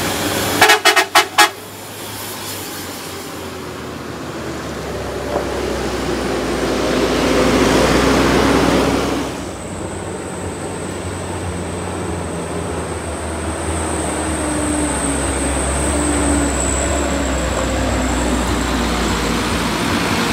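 A vehicle horn gives about five quick toots about a second in. Truck engines run after it. A rushing engine noise swells to around eight seconds, cuts off fairly suddenly, and gives way to a steady low engine drone.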